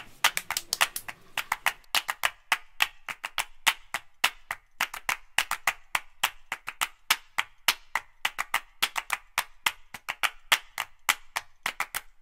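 Music track in a percussion-only stretch: quick dry clicks like a wood block or hand claps, several a second, with no bass line under them.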